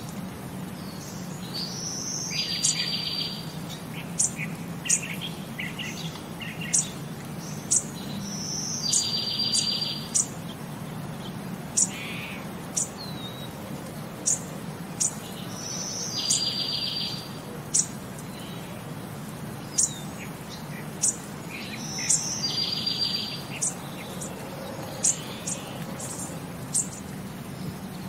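Birds calling: short, sharp high chirps about once a second, and every six or seven seconds a buzzy trill lasting about a second.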